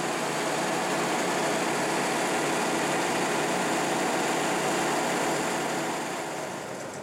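Large 75 hp AC electric drive motor running: a steady, even whoosh of fan and machinery noise with a faint hum, easing off near the end.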